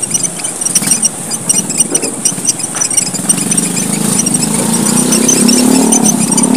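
A group of small red Papuan finches (emprit merah papua) chirping rapidly in a dense, high-pitched twitter. From about four seconds in, a motor vehicle's engine comes up underneath, growing louder and rising a little in pitch.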